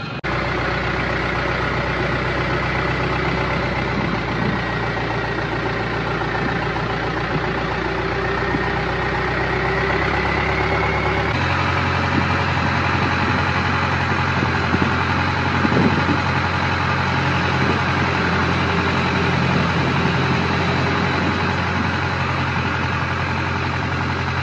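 Long-tail boat engine running steadily at cruising speed, heard from aboard the boat. About eleven seconds in the note changes abruptly to a different steady pitch.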